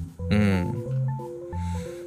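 Gentle instrumental background music: a slow, simple melody of held notes over a bass line.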